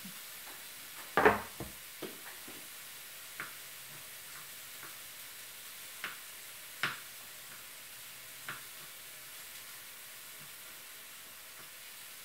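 Knife chopping garlic on a plastic cutting board: a loud knock about a second in, then scattered sharp taps every second or two over a faint steady hiss.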